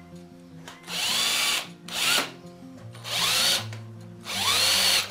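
Power drill-driver run in four short bursts, its motor whine rising each time, trying to turn out a seized gearbox screw with a chewed-up head on a small angle grinder. Faint background music with held notes underneath.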